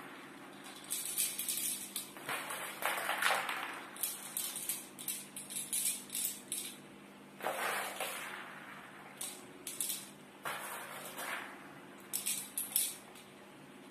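Airsoft BBs being pushed one by one into a spring airsoft pistol's plastic magazine, with irregular small clicks and clinks and a few louder handling rustles.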